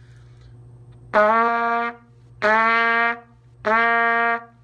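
Trumpet playing three separate notes on the same low C, each started with the tongue and held for under a second.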